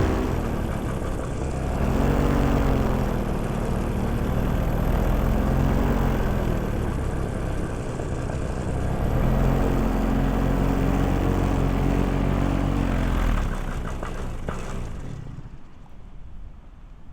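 Small propeller engine running, its pitch rising and falling with changes of throttle, holding higher for a few seconds, then winding down and fading out about fourteen seconds in.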